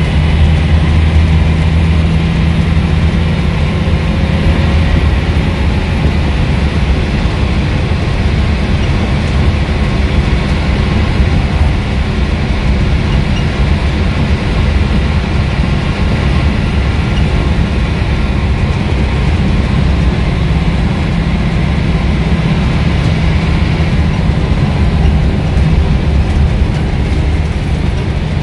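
Scania N230UB single-decker bus under way, heard from inside the passenger saloon: its five-cylinder diesel engine gives a steady low drone over road and tyre noise. The drone is strongest over the first few seconds and again near the end, easing for a stretch in the middle.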